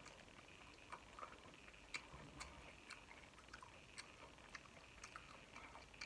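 Faint chewing of a mouthful of corn on the cob: soft, scattered mouth clicks and smacks, roughly one or two a second, over a quiet room hiss.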